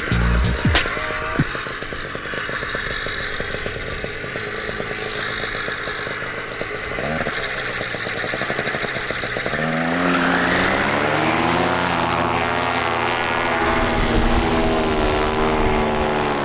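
Water-cooled Polini Thor 202 single-cylinder two-stroke paramotor engine running at low power, then throttled up about ten seconds in, its pitch rising and holding high and steady at full power for takeoff.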